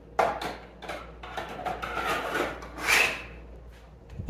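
3D-printed plastic drawers being handled and picked up from a table: irregular rubbing and scraping of plastic with light clattering, and a soft thump near the end.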